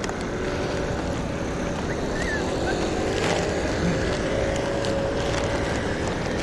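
City street noise: a steady rumble of road traffic with a faint engine tone, and wind buffeting the microphone.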